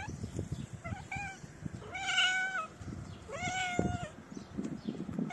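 Cat meowing: a short meow about a second in, then two long, drawn-out meows, each held at a steady pitch and dropping at the end.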